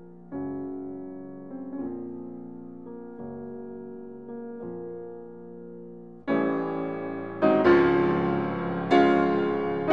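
Background piano music: soft single notes and chords, turning to louder, fuller chords about six seconds in.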